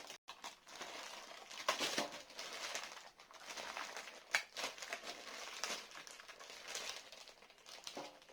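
Plastic packaging crinkling and rustling in irregular bursts with a few sharper crackles, as Play-Doh tubs are unwrapped.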